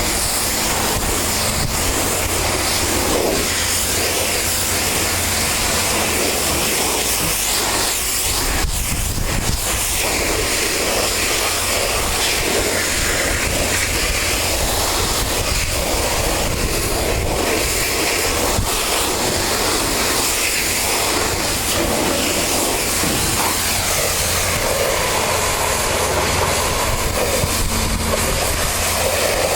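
Pressure washer spraying water in a steady, unbroken hiss, with the washer's pump and motor humming underneath.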